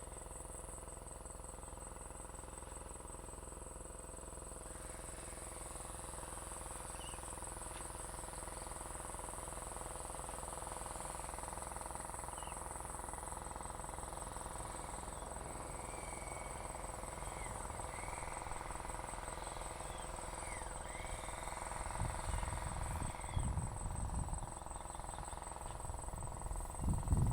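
Outdoor ambience: scattered short bird chirps over a steady background hum, with irregular low rumbling bumps on the microphone in the last few seconds.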